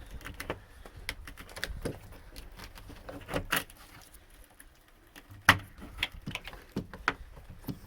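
Metal RV door-lock body being worked through the tight cutout in the door, giving scattered clicks, taps and light scrapes, with one sharp knock about five and a half seconds in.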